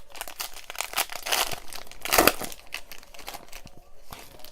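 Foil wrapper of a trading card pack being torn open and crinkled, with the loudest rip a little over two seconds in.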